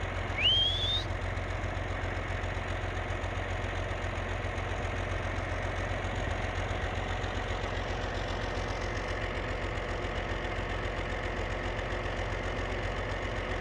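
Tractor engine idling steadily throughout. Under a second in, a short, loud, rising whistle sounds over it.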